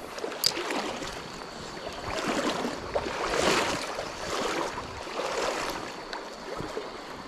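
Stream water rushing and splashing, swelling in surges about two, three and a half, and five seconds in, with a sharp click about half a second in.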